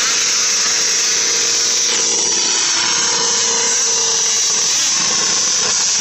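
Vintage two-stroke snowmobile engine running nearby, a loud, steady, high-pitched buzz.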